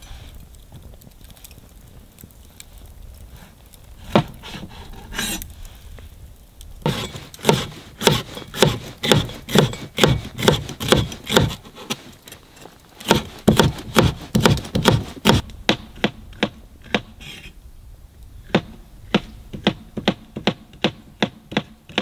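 Wood being worked by hand with repeated scraping strokes. A few single strokes come first, then a quick run of about two to three strokes a second with a short break, then slower, spaced strokes near the end.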